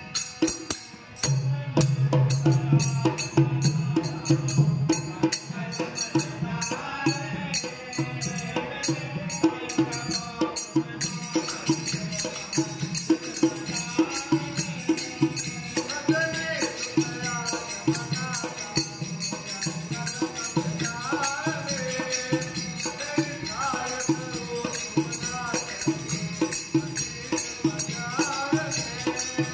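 Devotional folk singing by male voices, accompanied by a dholak drum, a harmonium and hand percussion keeping a steady beat.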